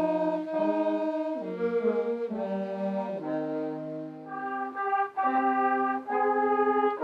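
Music: a brass ensemble playing slow, held chords that change about once a second.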